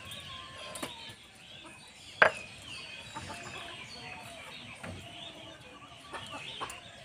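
Chickens clucking around the yard. About two seconds in comes a single sharp knock, the stone roller of a shil-nora grinding stone set down on its stone slab.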